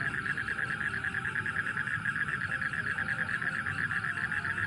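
Frogs calling in a night chorus: a steady, rapidly pulsing high trill, with a low rumble underneath.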